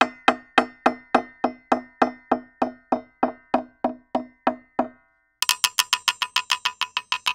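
A knife-chopping sound effect, electronically modified into a steady run of hollow, low-ringing knocks about three to four a second. After a short break it becomes a faster, higher-pitched run of chops, about eight a second.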